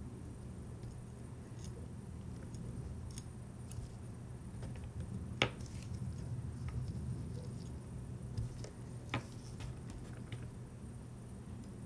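Tweezers clicking and scraping lightly against the steel plate of a watchmaker's staking tool and a small balance wheel, a scatter of faint ticks with a sharper click about five seconds in and another near nine seconds, over a steady low hum.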